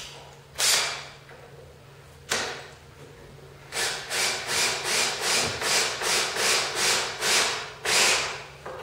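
Cordless drill/driver run in short trigger bursts, driving a screw through a miter sled fence into its MDF base: two single bursts, then from about four seconds in a quick string of about a dozen pulses, some two to three a second, snugging the fence down flush.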